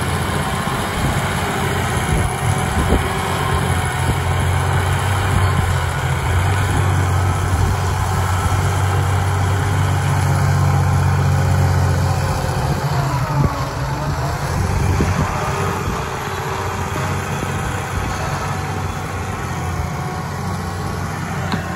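New Holland T7 tractor engine running steadily under load as it pulls a multi-furrow reversible plough through heavy ground. It grows louder around the middle, then eases off somewhat.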